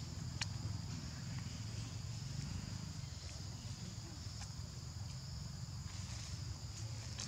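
A steady high insect drone, with a low rumble underneath and a few faint clicks.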